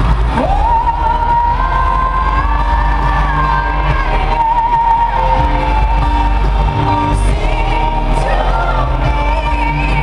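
Female lead vocalist singing live over a pop band with heavy bass, the voice sliding up and holding one long high note through an arena's sound system.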